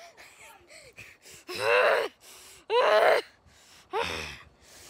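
A child letting out three short, high-pitched cries, about a second apart.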